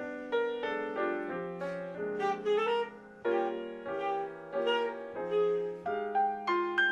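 Saxophone and grand piano playing together, the saxophone carrying a melody over piano chords.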